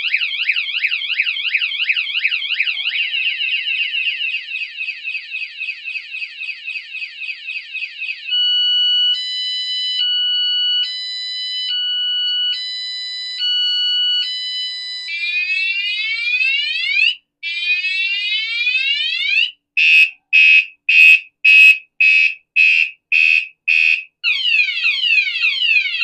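A 113 dB vibration-sensing bicycle anti-theft alarm going off after the bike is moved. Its electronic siren cycles through patterns: a fast warble first, then a high-low two-tone alternation about a second per tone, then rapid falling sweeps, then quick beeps about two a second, then falling sweeps again.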